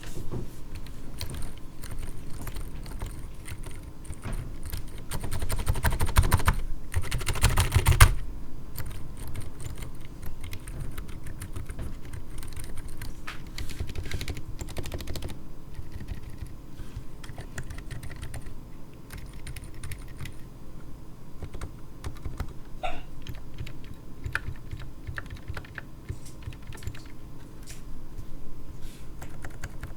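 Keystrokes on a mechanical keyboard fitted with stock, unlubed Durock Daybreak Silent (Silent Alpaca) 67g silent linear switches, with muted clacks as the keys are pressed. A fast, louder run of keystrokes comes between about five and eight seconds in; after that the presses are spaced out.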